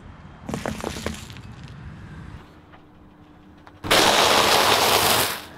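A car tyre rolls over foil-wrapped candy eggs with a short run of sharp crackling crunches. About four seconds in, a much louder, dense crunching lasts about a second and a half as the tyre crushes a pile of crunchy cheese puff balls.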